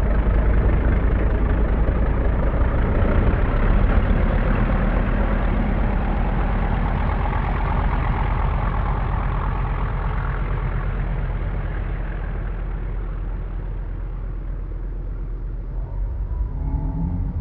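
250cc Moki radial engine of a large-scale RC Sukhoi Su-31 running in flight. The sound builds over the first few seconds and then slowly fades, and a clearer, slightly rising engine note comes through near the end.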